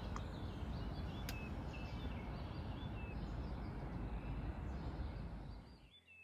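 Birds chirping with many short calls over a steady low outdoor rumble, with one sharp click about a second in; the sound fades away near the end.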